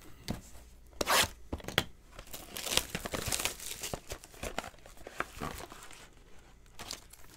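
Shrink-wrap being torn and crinkled off a sealed trading-card box by hand, in irregular sharp rips and rustles, the loudest about a second in.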